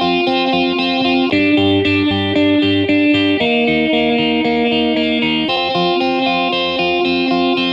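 Instrumental hip-hop beat with a repeating plucked guitar-like riff through effects, changing chords about every two seconds, with no vocals.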